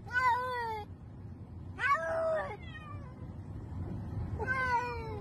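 A black-and-white cat meowing three times in long, drawn-out meows, with a low steady rumble of the car underneath.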